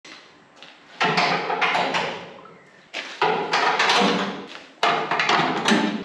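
Three bursts of clattering knocks, each starting suddenly and ringing out in the echo of a shed.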